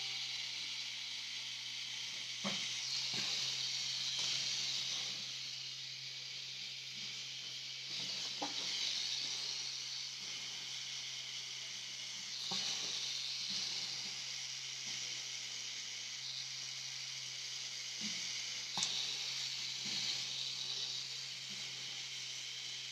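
Tattoo machine running steadily as its needle shades skin: a constant low hum under a hiss, with a few soft clicks along the way.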